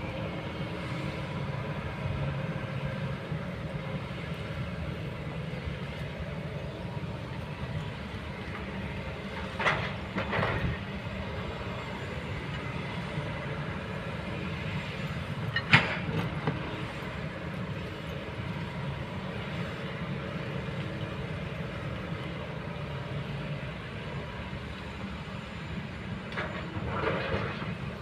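Kobelco excavator's diesel engine running steadily under work, with a few sharp metallic clanks, about ten seconds in, again around sixteen seconds (the loudest), and near the end.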